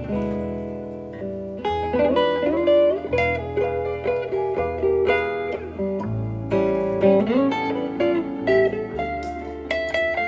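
Live jazz: an amplified hollow-body archtop guitar plays a single-note melody with some sliding notes, over an upright double bass holding low notes.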